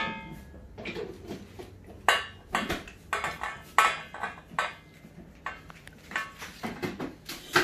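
Kitchen clatter: irregular clinks and knocks of dishes, pans and utensils being handled, a few of them ringing briefly.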